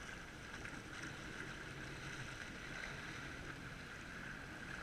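Jet ski engine running steadily at low speed, a constant hum with a steady whine above it.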